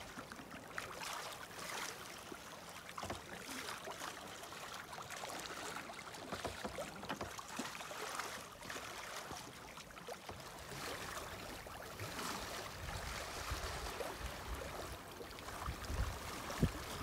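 Water gurgling and lapping around a boat's hull under sail, with small splashes. A low rumble comes in over the last few seconds.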